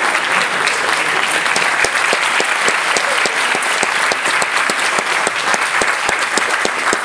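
A theatre audience applauding, with dense, steady clapping.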